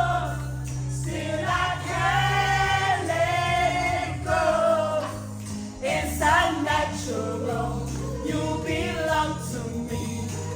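Music with singing voices, a choir-like vocal sound over sustained low notes.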